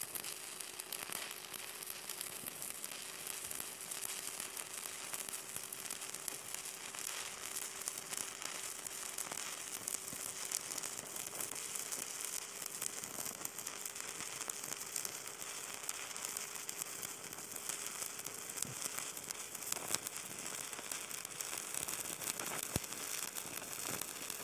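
Stick-welding arc crackling and sizzling steadily as a rod electrode burns along a fillet weld joining a steel wear plate to a tow truck boom, with a faint steady hum beneath.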